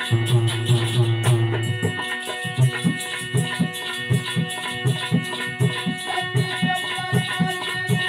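Instrumental interlude of Alha folk music: harmonium notes held under a hand drum. A low held tone drops away about two seconds in, and a drum takes up a steady beat of about two to three strokes a second.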